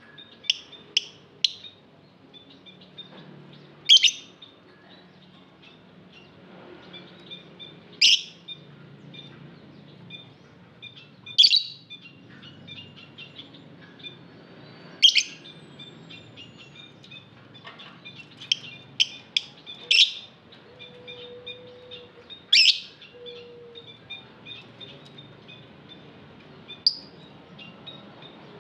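Lovebirds calling: loud, shrill calls come every three to four seconds over continuous soft, high chirping. A quick run of short chirps comes at the start and again just before the last loud calls.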